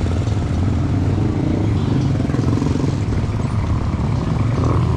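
A motorcycle engine running steadily, a continuous low rumble.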